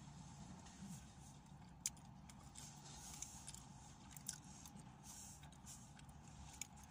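Near silence: faint car-interior room tone, a low steady hum, with a few faint clicks.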